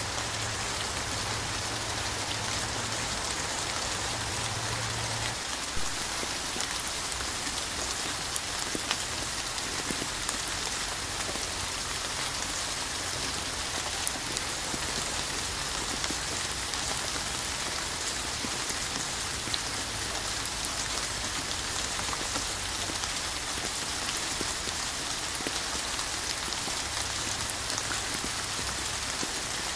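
Steady rain falling, an even hiss with scattered sharper drop hits.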